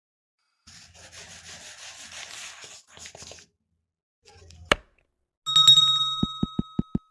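Subscribe-animation sound effects: a soft rustling swish, then a single mouse click, followed by a bright bell ding that rings out for about a second and a half. Near the end a quick, even run of soft thumps begins.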